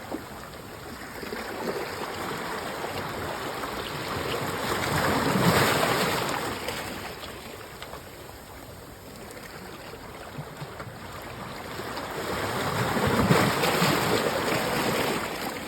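Rushing water, rising into two long surges and falling back between them.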